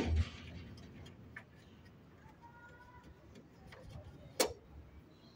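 A few scattered clicks and knocks of hand tools and plastic parts being handled while a car's windshield washer pump is taken out: a louder knock at the start, a small click about a second and a half in and a sharp click near the end.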